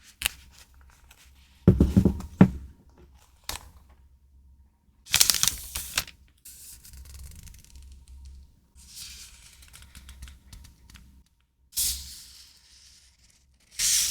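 Paper and plastic stationery packaging being handled: several short rustling and tearing bursts, with a few sharp knocks and clicks in between.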